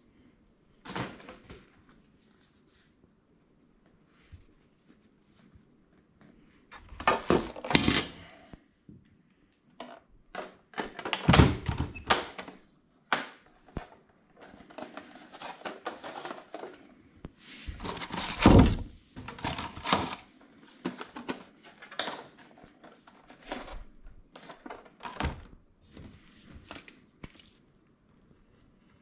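Hard plastic cat flap parts being handled, knocked together and set down on a wooden floor: irregular knocks and clatters with some rustling, with a few louder bursts of clattering.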